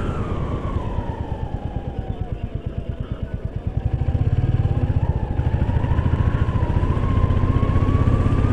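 Motorcycle engine running at low revs with separate firing pulses for the first few seconds, then opened up and running louder and steadier from about four seconds in. A faint whine falls and then slowly rises with the road speed.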